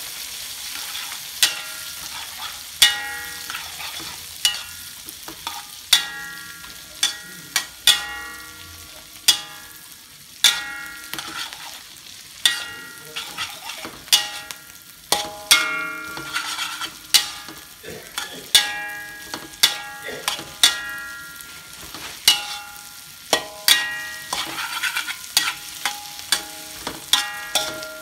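A metal spatula striking and scraping a metal wok while green beans and eggs are stir-fried. The sharp clangs ring on after each strike, coming one or two a second and quicker near the end, over a steady sizzle of frying.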